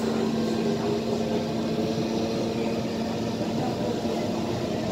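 Running noise inside a SMRT Kawasaki C151 metro train carriage travelling at speed: a steady rumble from the wheels and running gear, with a constant hum over it.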